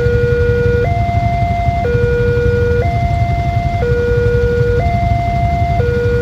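Railway level-crossing warning alarm sounding a two-tone hi-lo signal, switching pitch about once a second, over a steady low rumble.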